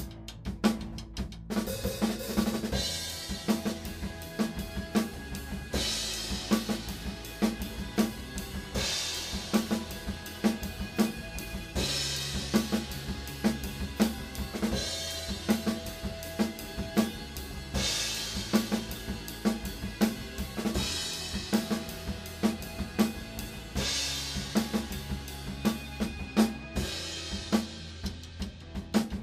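Rock drum kit played at a steady groove: kick, snare and hi-hat strokes in an even pattern, with a cymbal crash about every three seconds.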